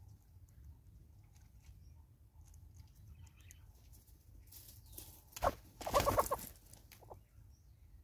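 Hornbill giving a short burst of rapid clucking notes about six seconds in, with a single loud note just before it.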